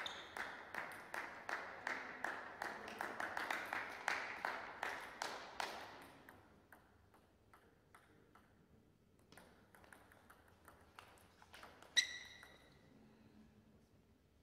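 A table tennis ball bounced repeatedly, about three to four times a second, each click echoing in the hall, for about six seconds. Scattered fainter taps follow, then one sharper ringing ping about twelve seconds in.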